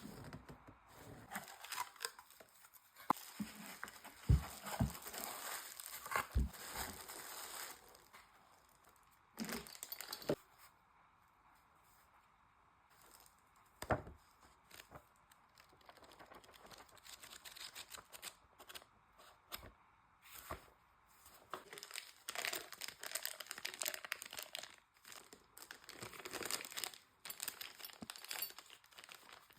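Packaging being handled and torn open while a cordless impact wrench is unboxed: rustling and crinkling in uneven spells, with a few sharp knocks and a quiet pause of a few seconds near the middle.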